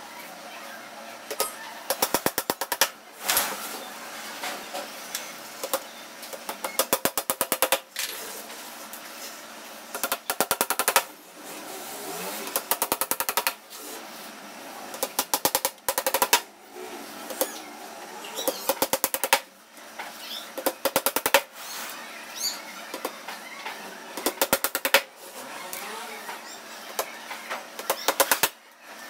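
A claw hammer tapping small nails into the thin board top of a wooden box, in quick runs of light taps with short pauses between them.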